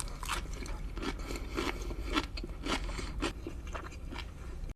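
Close-miked chewing of food, a steady run of short wet chewing sounds about three a second.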